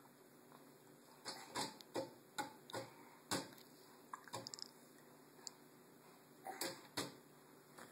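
Young child hiccuping: short, sharp catches of breath, five in quick succession, one more a second later, then two near the end.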